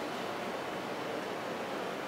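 Steady, even hiss of background room noise, with no distinct events.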